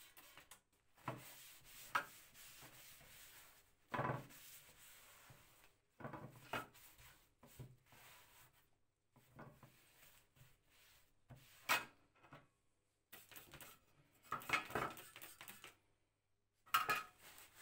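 A cloth rubbing and wiping over bare sheet-metal carpet sweeper parts in irregular strokes, with a few sharp knocks as the metal pieces are handled and set down on the bench.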